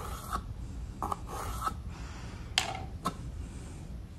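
A pencil scraping along a wooden edge in short strokes as a line is scribed, then two sharp knocks about half a second apart near the end.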